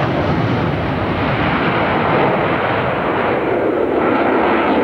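Jet noise from a Blue Angels F/A-18 Hornet's twin turbofan engines during a display pass: a loud, steady, rushing jet roar.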